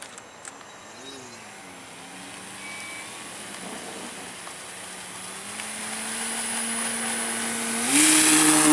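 Engine of a radio-controlled Hangar 9 P-47 model airplane running steadily and growing louder as the plane rolls down the runway. Near the end it is throttled up sharply for the takeoff run, jumping higher in pitch and much louder.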